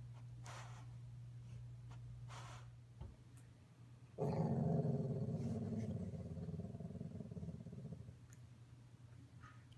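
Sleeping yellow Labrador retriever growling in her sleep while dreaming: a sudden low, drawn-out growl about four seconds in that lasts about four seconds and fades away, after a couple of faint breathy puffs.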